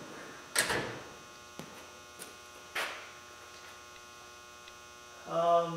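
A steel tool chest drawer on auto-close slides runs shut with a short clatter about half a second in. A few faint clicks and a second, softer noise follow, over a steady electrical hum.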